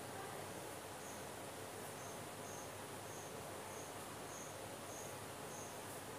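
A cricket chirping: short, high chirps repeating a little under twice a second, starting about a second in, over a faint steady hiss.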